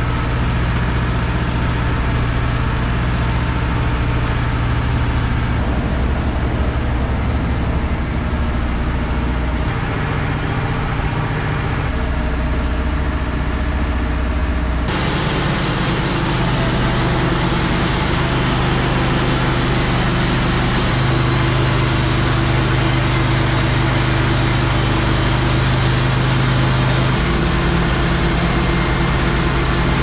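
Wood-Mizer LT15 Wide portable band sawmill running steadily, its engine driving the band blade through a log. The tone shifts abruptly about halfway through.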